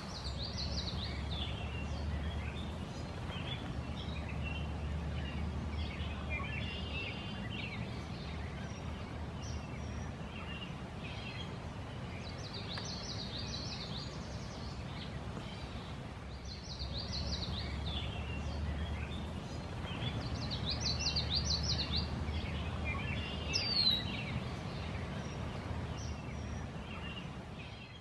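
Marsh ambience with several small birds calling and trilling again and again, and a falling whistle about three-quarters of the way through, over a steady low rumble.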